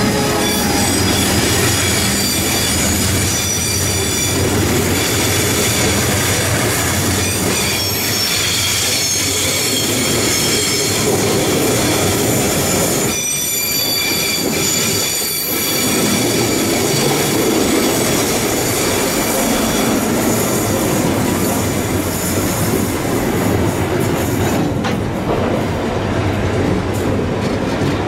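Freight train of loaded flat wagons rolling past close by: steady rolling noise of steel wheels on rail, with a high, ringing wheel squeal throughout. A low locomotive hum is heard at the very start, and the sound dips briefly about halfway through.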